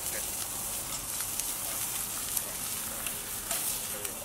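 Steak searing on a very hot cast-iron grill plate over glowing charcoal: a steady sizzling hiss with occasional crackles.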